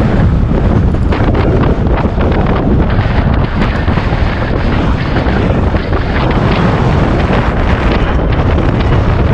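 Strong wind rushing and buffeting on the microphone while the bicycle rides at speed. The rush is loud and steady, with constant ragged crackle from gusts hitting the mic.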